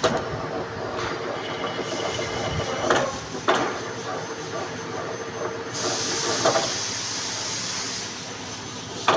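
Manual metal lathe running, with a steady mechanical whine. A few sharp knocks about three seconds in and near the end, and a burst of hiss about two-thirds of the way through.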